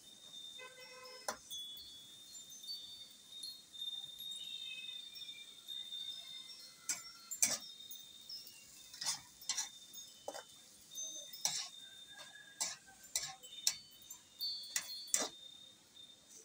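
Metal spatula scraping and clinking against a wok while stir-frying beef, about a dozen sharp metallic clinks, mostly in the second half.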